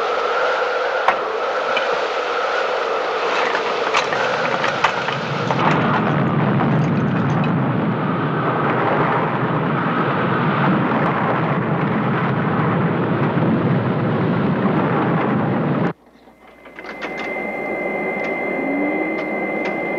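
Tornado wind howling with a whistling roar that turns into a deep rumbling roar about six seconds in. The roar cuts off suddenly near the end and gives way to a steady high tone with scattered clicks.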